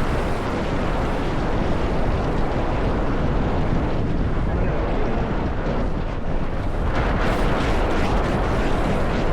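Strong wind buffeting the microphone of a small sailboat, a steady loud rumble with no letup.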